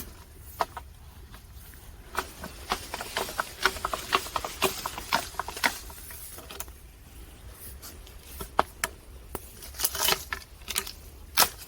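Maesil (green plums) dropping from a shaken tree, landing in a patter of irregular sharp taps that come thickest about two to six seconds in and again near the end.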